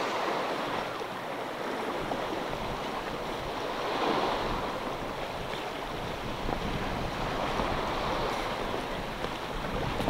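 Sea waves washing against a rocky shoreline: a steady rushing wash that swells around the start and again about four seconds in. Wind buffets the microphone underneath.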